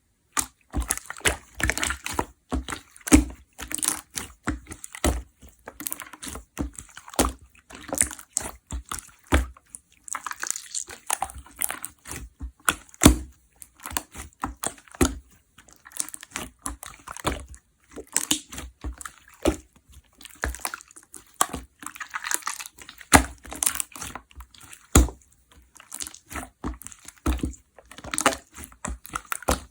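Clear slime being squished and pressed by hand, giving wet clicks, pops and squelches in quick, irregular succession.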